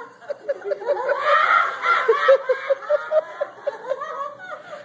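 Several people laughing hard, one in a long run of short, rapid ha-ha-ha bursts at several a second, with a higher voice laughing over it for a while: the uncontrolled 'holy laughter' of a charismatic revival meeting.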